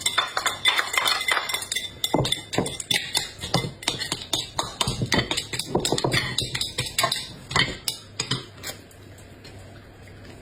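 Kitchen utensils clinking and knocking against cookware in a quick, irregular run of taps that thins out and stops about eight or nine seconds in.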